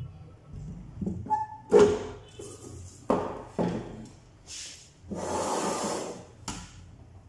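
Sheet-metal casing of a benchtop lab centrifuge being handled and refitted: a few knocks and clunks in the first half, then a longer scraping slide of metal on metal for about a second and a half near the end.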